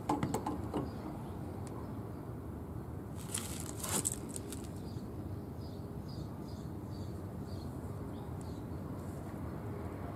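Pipe wrench clicking and scraping against a metal hose bibb as it is gripped and turned. There are a few sharp clicks at the start and a louder cluster about three to four seconds in, over a steady outdoor background hiss.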